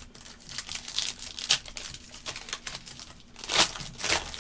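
A trading-card pack's wrapper being torn open and crinkled by hand: irregular rustles and crackles, the loudest a little past three and a half seconds in.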